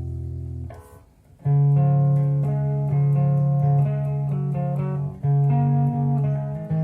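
Electric bass played through a Fender Rumble LT25 bass amp. A held note dies away, and after a short pause about a second in a loud run of picked notes follows, broken once briefly just after five seconds.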